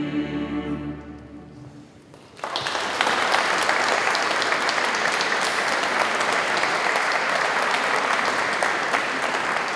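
A mixed choir's final held chord fades out over the first second or two. After a brief lull, audience applause breaks out about two and a half seconds in and carries on steadily.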